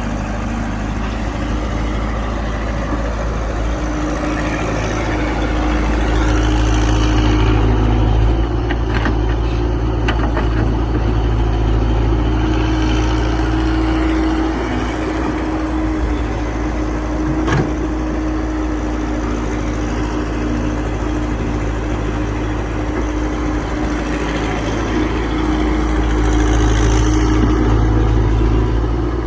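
Excavator's diesel engine running steadily while digging, growing louder for a few seconds twice as it takes load, with one short sharp knock a little past the middle.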